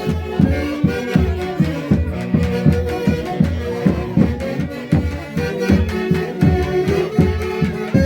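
Andean folk orchestra playing festive dance music, with sustained melody instruments over a steady, quick drum beat.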